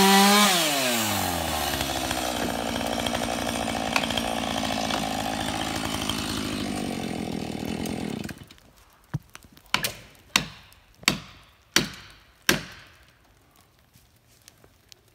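Husqvarna two-stroke chainsaw dropping from full throttle to idle, idling for about eight seconds, then cutting off suddenly. Then six sharp axe strikes, about two-thirds of a second apart, each ringing briefly.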